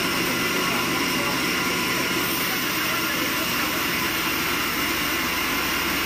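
Large sawmill band saw running steadily while its blade cuts lengthwise through a squared timber of yellow resin wood: a constant mechanical noise with a steady whine, with no pauses.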